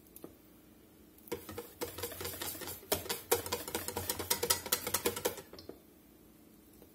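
Wire whisk beating a wet batter in a stainless steel bowl: rapid clicking and clattering of the wires against the bowl, starting about a second in and stopping after about four seconds.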